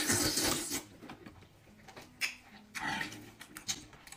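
A person slurping sauced oysters off a skewer: a loud slurp in the first second, then quieter wet chewing with small clicks and smacks of the mouth.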